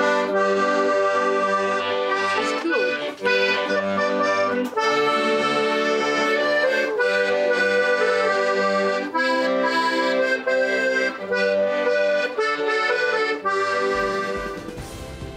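A piano accordion about 80 years old, freshly repaired, playing a tune: a melody on the keyboard over a rhythmic bass accompaniment. The playing fades out near the end.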